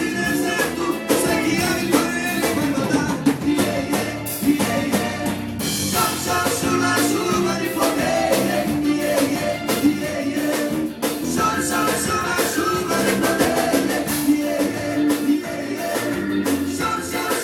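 A band playing upbeat music with a drum kit keeping a steady beat.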